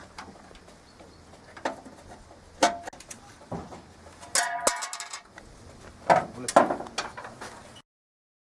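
Metal clicks and clinks of pliers and a truck's licence plate being worked loose from its bumper, with a short run of ringing metallic strikes about four and a half seconds in and more clicks a little later. The sound cuts off suddenly just before the end.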